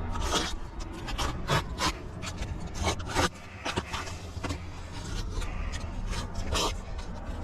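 Irregular scraping and rubbing strokes of hands and tools working asphalt roof shingles, with a steady low rumble underneath.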